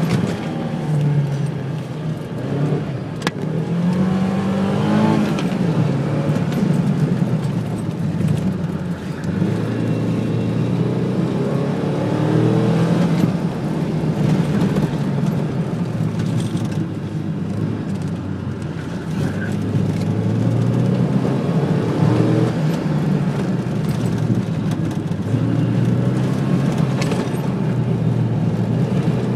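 Car engine heard from inside the cabin, its pitch rising and falling again and again as the car accelerates and slows between cones on an autocross course.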